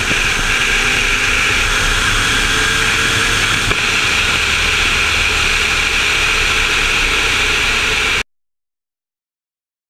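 Steady rush of wind and engine noise from a moving turbocharged Corvette, picked up by a camera mounted on the car. It cuts off abruptly about eight seconds in.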